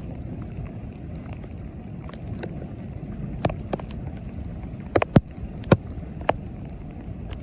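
Storm wind buffeting the microphone in a steady low rumble, with a handful of sharp taps or knocks about halfway through.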